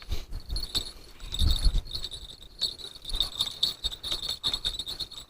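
Insects, likely crickets, chirring steadily in a high, slightly pulsing trill, with wind buffeting the microphone in low gusts.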